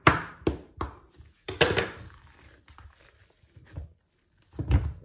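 Knife cutting through risen dough and knocking against a stainless steel bowl: a run of quick sharp strikes, about two and a half a second, then a louder scraping stroke about one and a half seconds in. Quieter handling follows, and a dull thud comes near the end.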